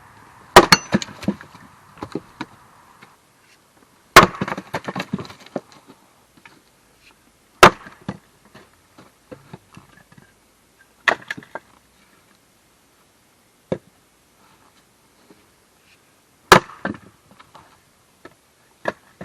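An axe splitting firewood by hand: five hard strikes into wood, three to four seconds apart, each followed by a short clatter of split pieces falling and knocking together, with a few lighter knocks between.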